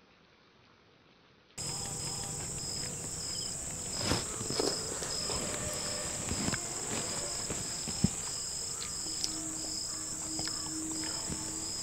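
After a near-silent first second and a half, outdoor insects start up abruptly: a steady high-pitched drone, with cricket chirps repeating about two to three times a second. A few sharp clicks and knocks come through, the loudest about eight seconds in, and a faint low hum runs briefly near the end.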